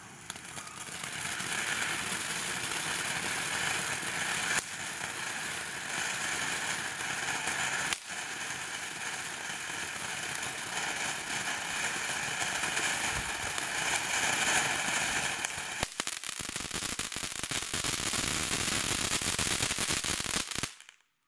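Cuckoo ground fountain firework burning: a loud, steady spraying hiss that builds over the first second or two, broken by a few sharp cracks, and cuts off suddenly as the fountain burns out near the end.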